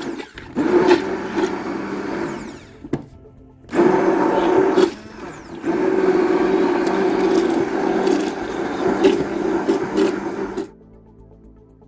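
Hand-held immersion blender puréeing soft fruit and liquid in a plastic bucket. It runs in three bursts with two short pauses and is switched off near the end.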